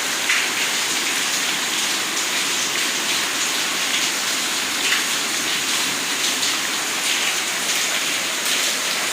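Heavy rain pouring down: a steady, even hiss of falling water.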